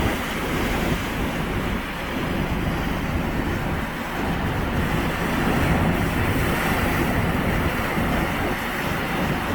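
Sea surf washing on the shore with wind buffeting the microphone: a steady rushing noise over an uneven low rumble.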